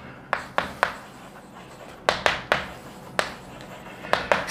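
Chalk tapping and scraping on a blackboard as words are written: about ten sharp, irregular taps.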